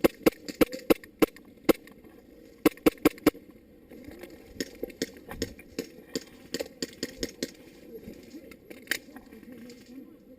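Airsoft guns firing: a quick string of sharp shots over the first couple of seconds, another short string about three seconds in, then scattered fainter pops and clicks.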